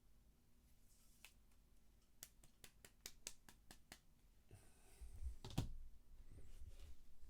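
Near silence broken by a quick run of faint light clicks and taps about two to four seconds in, then a single soft knock a little later.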